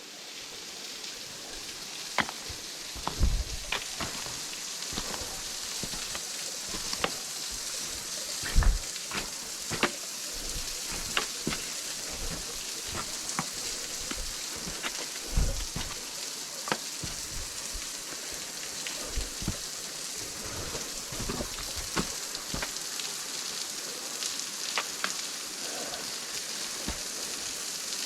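Small waterfall: a thin stream of water falling and splashing, heard as a steady hiss, with scattered sharp clicks and a few low thumps.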